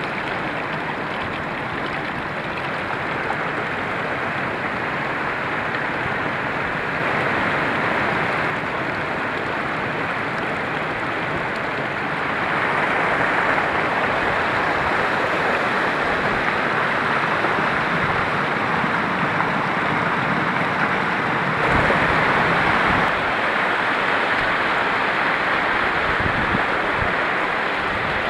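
Alpine mountain stream rushing over boulders and small cascades, a steady rush of water that grows louder for stretches.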